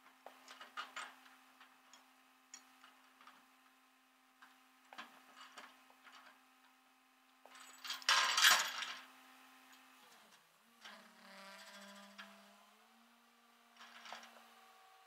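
Tow chain and hooks clinking and rattling as they are handled on a rollback tow truck's aluminium deck, loudest about eight seconds in, over a steady hum.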